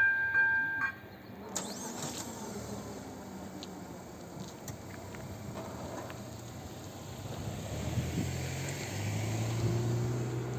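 Level crossing's electronic warning bell ringing in repeated dings, about two a second, cutting off about a second in as the crossing clears. Then a car engine approaching, growing louder from about eight seconds in.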